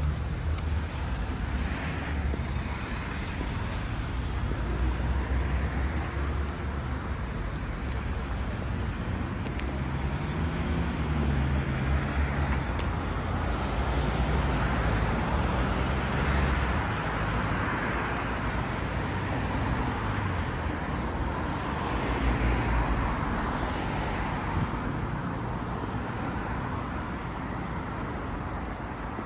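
City street traffic: cars and other motor vehicles passing, a steady low engine rumble with tyre noise that swells and fades as vehicles go by.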